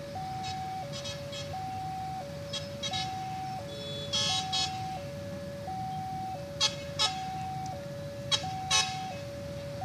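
Railway level crossing warning alarm sounding its two-tone signal, a low and a high note alternating about every 0.7 s, the sign that the crossing is closed for an approaching train. Over it, the rumble of waiting road traffic and short vehicle horn toots in pairs, the loudest about four seconds in.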